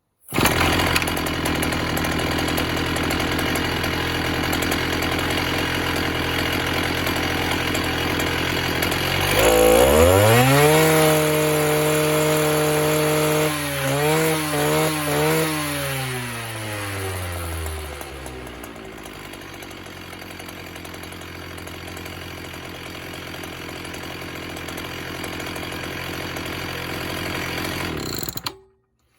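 Oleo-Mac 274 TTA concrete cut-off saw's two-stroke engine running, steady for several seconds, then revved up sharply and held at high speed. A few quick throttle blips follow before it drops back to a quieter idle.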